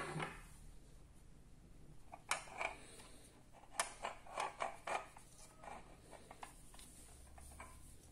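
Irregular light clicks and knocks, about a dozen, mostly between two and six seconds in.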